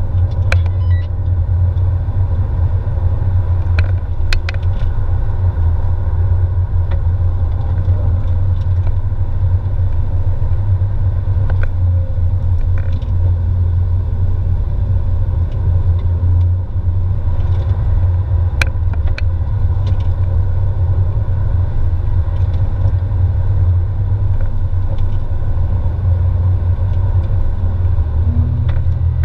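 Porsche 997 heard from inside the cabin while driving at a steady pace: a constant low rumble of its flat-six engine and tyres on asphalt, with a few light ticks.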